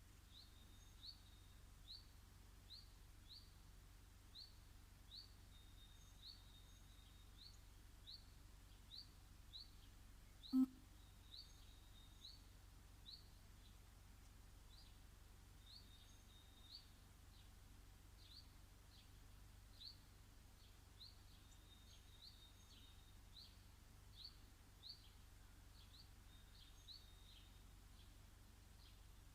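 Faint, short, high bird chirps repeating roughly every half second to a second, some with a brief held note, over a steady low hum. One sharp knock sounds about ten seconds in, louder than anything else.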